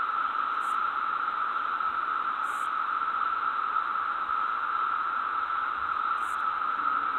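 Steady hiss of recording noise, strongest in a narrow band in the middle of the range, with no change. Three faint, brief high-pitched blips sound over it, about two to four seconds apart.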